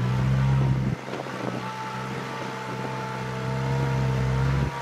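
Rock-crawling buggy's engine running under load as it climbs a steep rock ledge; its low steady note drops off about a second in and picks up again near the end.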